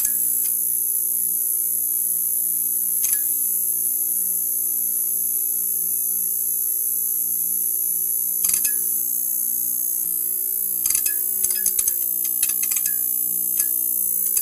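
Neon sign buzzing: a steady electrical hum under a high hiss, broken by short crackling clicks, a couple of single ones at first and then a quick run of them in the last few seconds.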